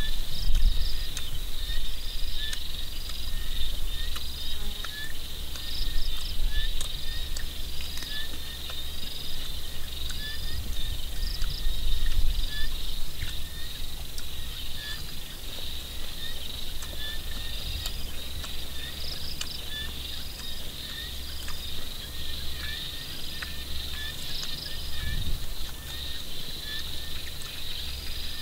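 A steady chorus of field insects chirping, with short calls repeating every second or so, over the uneven low rumble of wind on the microphone.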